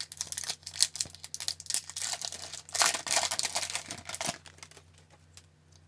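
A 1993-94 Fleer Ultra hockey card pack being opened and handled: the wrapper crinkles and tears in a dense crackle. It is loudest for about a second and a half in the middle.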